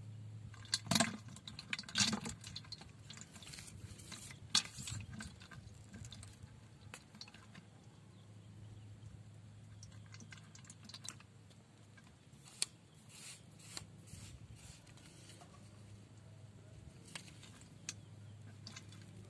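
Scattered sharp clicks and rustling close to the microphone, with the loudest ones in the first five seconds and a few single clicks later, over a steady low hum.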